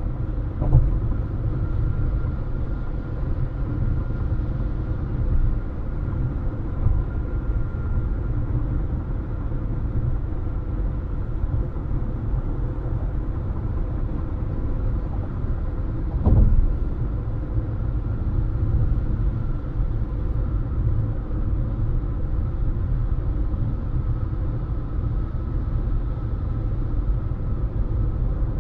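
Steady low road rumble of a car driving along at speed, with a faint steady whine on top. Two short thumps break through, one just under a second in and one about halfway.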